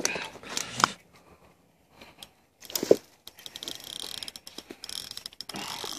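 Fishing reel giving off a fast, even run of ratcheting clicks in the second half, after a few handling clicks and a single louder knock about three seconds in.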